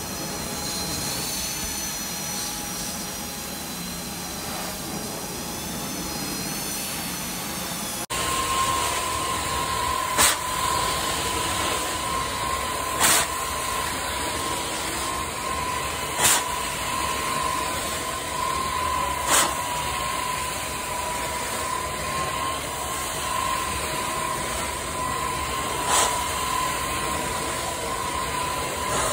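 Carpet extraction cleaning wand under suction, drawing air and hot water through the carpet with a steady rushing hiss. After an abrupt change about eight seconds in, the run carries a steady high whine, with a brief sharper burst every few seconds as the wand works the carpet.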